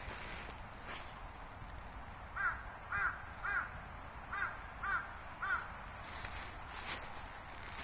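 A crow cawing six times, in two runs of three harsh calls.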